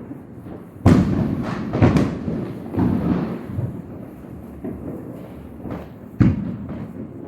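Firecrackers going off in a volley of sharp bangs, with a loud cluster about a second in and a single sharp bang near the end, each trailing off in an echo.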